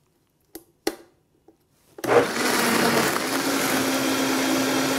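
Two light knocks as the blender lid is seated, then about two seconds in a Vitamix blender starts and runs steadily, blending milk, coffee, sliced bananas and ice into a smoothie; its motor hum steps up slightly about a second after starting.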